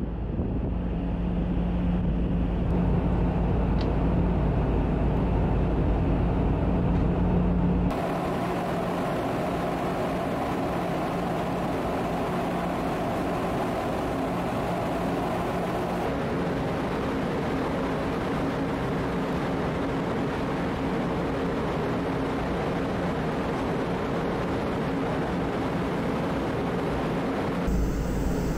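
Steady drone of the ferry Dogo's engines and shipboard machinery, heard on deck in three cut-together clips: first a heavy low rumble with a steady hum, then from about eight seconds a broader rushing noise, then from about sixteen seconds a steadier hum.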